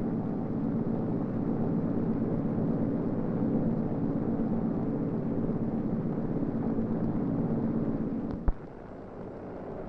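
Heavy construction machinery engine running steadily with a low, even drone. It cuts off with a click about eight and a half seconds in, leaving a fainter background hum.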